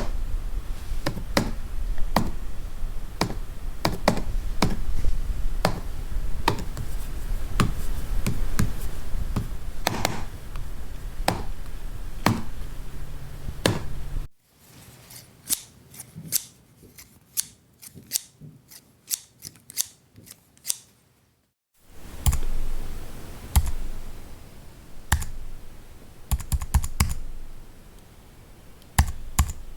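Computer keys being pressed, a steady run of key clicks over a low background hum. About fourteen seconds in, it cuts to a series of scissor snips against a quiet background. About twenty-two seconds in, it cuts to slow typing on a computer keyboard.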